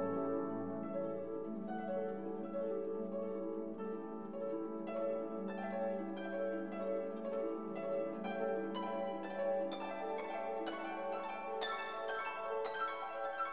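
Instrumental background music of plucked strings, with a harp-like run of notes over a sustained low line.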